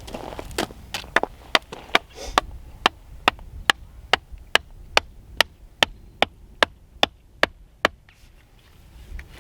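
A hammer driving a stake into the ground with steady, evenly spaced blows, about two and a half a second, nearly twenty strikes that stop a little before the end.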